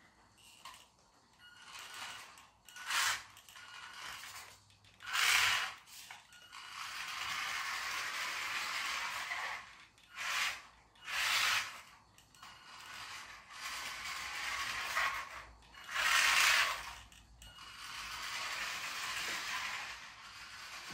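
Small radio-controlled toy car driving on a laminate floor: its scavenged toy brushed motor running in several short louder bursts of throttle between steadier stretches, on hard plastic wheels.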